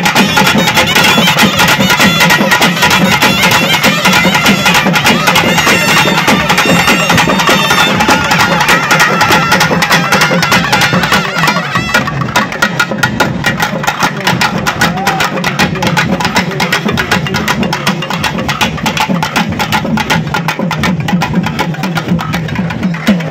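Thavil drums beaten fast with sticks in a driving rhythm, under clarinets playing a wavering melody: a Tamil folk band in full swing.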